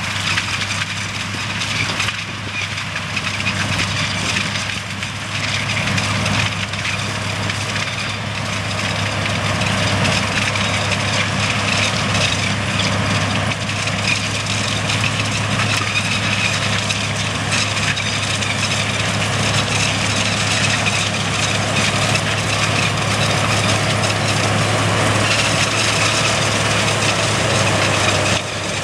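Converted sugar cane harvester running steadily as it cuts willow and chops it into billets: a constant deep engine hum under a dense, even noise of the cutting and chopping. The level dips briefly near the end.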